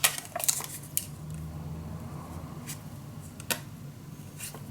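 Craft tools and paper being handled on a work table: a few sharp clicks and taps, the loudest right at the start, then two more within the first second and a couple of lighter ones later.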